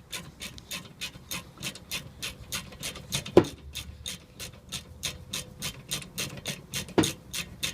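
Ratchet clicking rapidly and evenly, about six clicks a second, with a louder knock about three and a half seconds in and another near the end.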